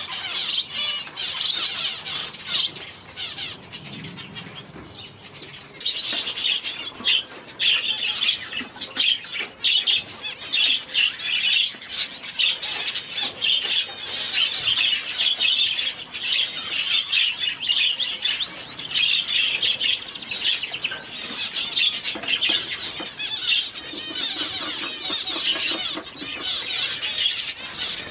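Small finches chirping rapidly and almost without pause, many high-pitched short calls overlapping, easing off briefly a few seconds in.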